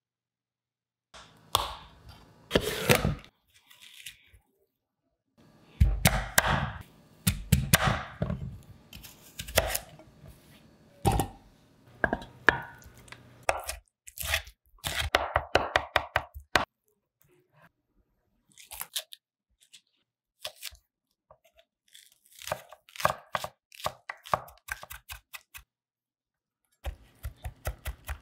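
A cleaver and a chef's knife chopping on a wooden cutting board, mincing raw shrimp into a paste and then garlic. There are runs of quick chopping strokes, with louder, longer noisy bursts in the first half.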